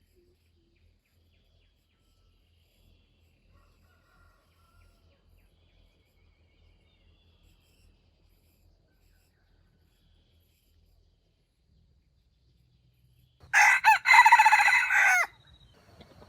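A junglefowl rooster crows once, loud and short, about thirteen seconds in: a call of under two seconds with a brief break near its start. Before it only faint, scattered bird chirps.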